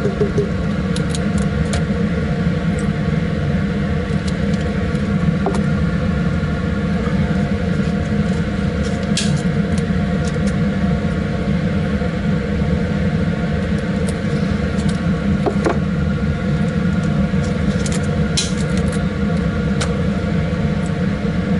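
Steady hum of a laminar flow hood's blower fan, with a few light plastic clicks from small tissue-culture containers being handled.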